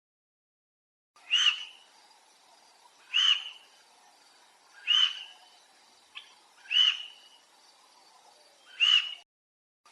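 A small animal's short high-pitched call, repeated five times about once every two seconds.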